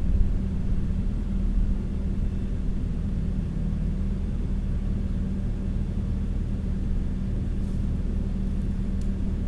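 Kioti skid steer's diesel engine running at a steady speed, a constant low hum with no change in revs.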